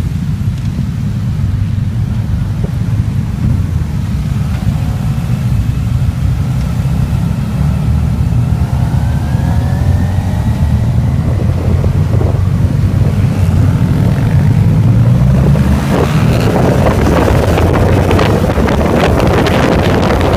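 Engines of a large pack of BMW motorcycles riding together, heard from on board one of the bikes: a steady low rumble, with engines revving up and down about halfway through. Wind buffets the microphone, growing much stronger over the last few seconds as the pack picks up speed on the straight.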